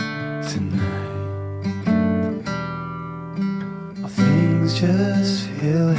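Background music: a song carried by strummed acoustic guitar, with no singing.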